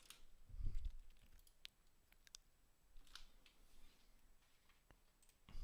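Faint scattered clicks and taps from a laptop being worked, with a soft low thump about half a second in.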